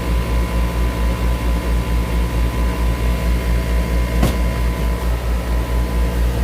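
4-ton central air conditioner's outdoor condensing unit running: a steady hum from compressor and fan with a regular low pulsing about five times a second. A short click about four seconds in.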